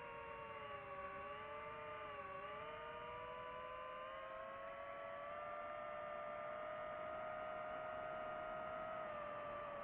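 DJI FPV drone's motors and propellers whining: several steady tones that dip in pitch together about two seconds in, then climb slowly and hold as the motor speed changes.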